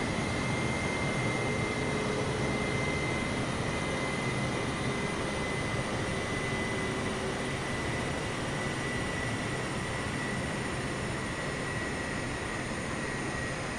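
Jet airliner engines running steadily, a dense rush of noise with a thin high whine that drifts slightly lower.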